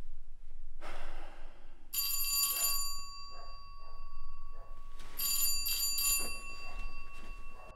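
Electronic doorbell ringing: a bright bell tone struck about two seconds in that rings on and fades, then rung again twice in quick succession a few seconds later.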